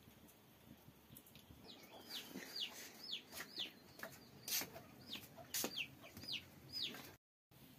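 Chickens calling: about ten short, high peeps, each falling in pitch, in two runs, with a few sharp clicks among them.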